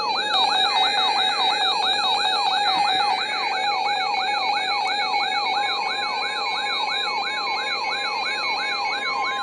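Electronic siren in a fast yelp: a falling tone that jumps back up and falls again about two and a half times a second, over a steady high tone, loud throughout.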